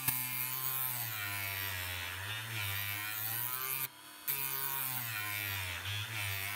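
Rotary engraving tool with a grinding stone running at low speed, grinding the edge of a steel planer blade. Its pitch wavers up and down as the stone rubs along the steel, and the sound drops away briefly about four seconds in. This is a first low-speed, uncooled pass to take the chips out of the blade's edge without overheating it.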